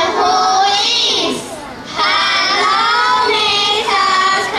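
A group of children singing together in held, steady notes, with a short break about a second and a half in.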